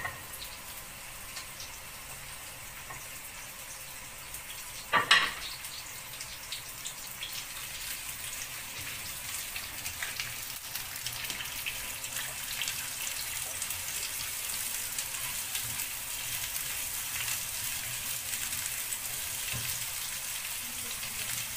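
Sliced onions sizzling in hot corn and olive oil in a frying pan, the sizzle slowly growing louder as they fry. A single sharp knock about five seconds in.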